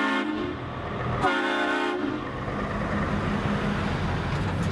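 Air horn of a Scania cement-mixer truck sounding, several tones together: a blast ending just after the start and a second one about a second in, under a second long. Underneath, the truck's diesel engine runs steadily.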